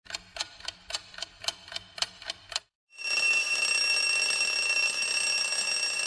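Alarm clock ticking evenly, about four ticks a second, for around two and a half seconds. Then, after a brief pause, its bell rings continuously and loudly.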